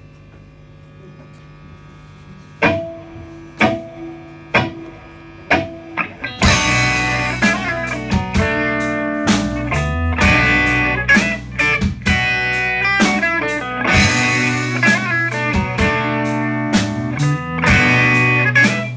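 Live rock band starting a song: a steady amplifier hum, then four single chords struck about a second apart, then about six seconds in the full band comes in with drum kit and electric guitars playing loudly.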